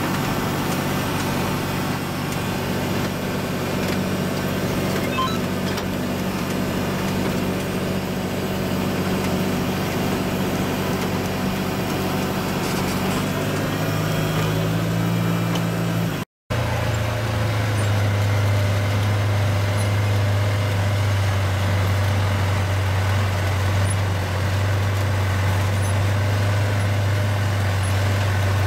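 John Deere tractor's diesel engine running at a steady speed, heard from inside the cab as a continuous hum. After a brief dropout about 16 seconds in, the engine is heard from outside the tractor as it drives past, with a stronger, lower hum.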